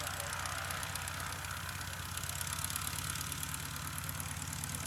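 Luscombe 8A Silvaire's piston engine idling steadily on the ground, its propeller turning over with an even low pulse.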